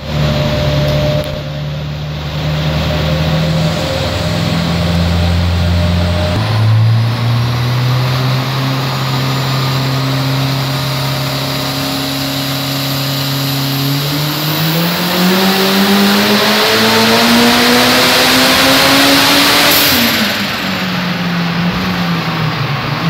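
Turbocharged SR20 four-cylinder engine in a 1979 Datsun Stanza on a chassis dyno. It runs at low revs, steps up and holds steady about six seconds in, then climbs steadily in pitch through a power run from about fourteen seconds. Near the end the revs fall away as the pull ends.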